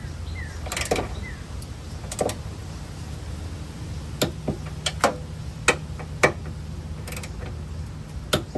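Click-type torque wrench tightening strut-bushing nuts: scattered sharp clicks and ratcheting, each wrench click marking a nut reaching its set torque (22 foot-pounds), over a steady low hum.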